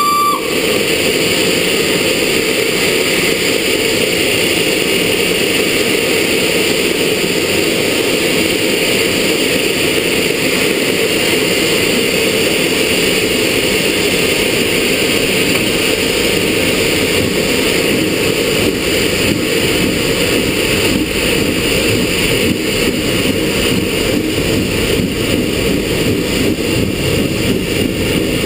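Loud, steady cab noise on the footplate of LNER K4 three-cylinder steam locomotive No. 61994: firebox, exhaust and running gear together. A whistle note cuts off right at the start.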